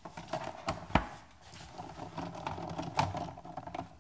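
Small irregular metal clicks and knocks of a 10 mm deep socket on a long driver being fitted onto and worked on an air box bolt, with a sharper knock about a second in and another about three seconds in.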